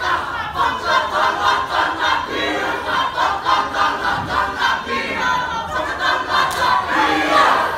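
A Māori kapa haka group performing a haka: many voices chanting and shouting in rhythmic unison.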